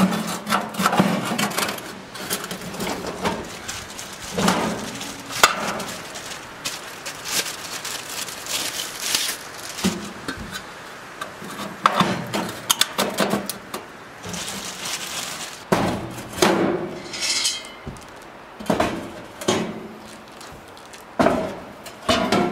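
Metal gas grill parts, new grates and burners, being handled and set into the grill body: irregular clanks and knocks, some ringing briefly, with a couple of short scrapes about halfway through.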